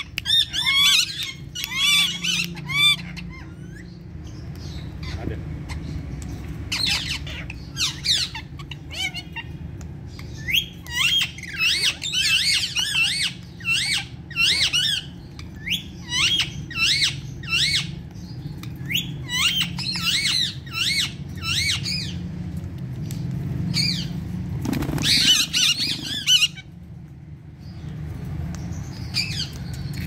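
Pet parrots, Indian ringneck parakeets and cockatiels, squawking in quick runs of short, high calls, pausing now and then. Wings flap briefly near the end.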